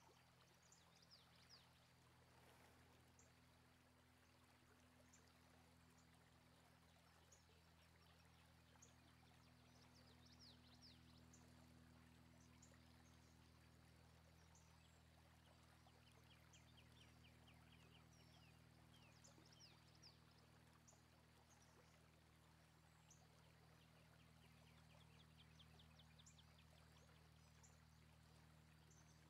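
Near silence: faint outdoor ambience with scattered high bird chirps and a couple of quick trills over a low steady hum.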